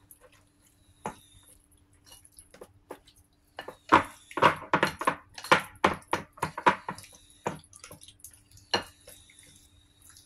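Raw chicken pieces being squeezed and mixed by hand in a wet marinade on a plate: a run of quick wet squelches and clicks, thickest from about four seconds in to seven and a half, with one more near the end.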